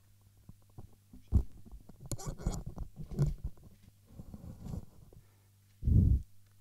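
Handling noise from a headset microphone being taken off and fitted: rustling, scraping and knocking on the mic, with a low thump near the end, over a steady low hum.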